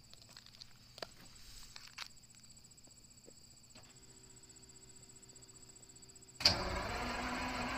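Detroit Diesel 12V71 two-stroke V12 cold-starting: a faint steady hum from about four seconds in, then the engine catches suddenly near the end and runs loud and steady.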